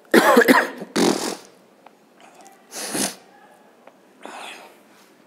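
A man coughing into his fist: two loud coughs close together, a third about two seconds later, then a softer one.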